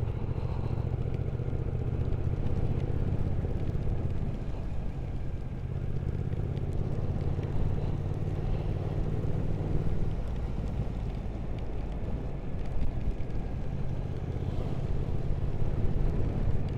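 Triumph Speed Twin 1200's parallel-twin engine running while the motorcycle rides along, under a steady rush of wind and road noise. The engine note fades for a few seconds in the middle, then comes back.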